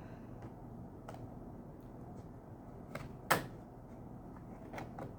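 A few light clicks and taps of small metal parts and hand tools being handled, one sharper click a little past the middle.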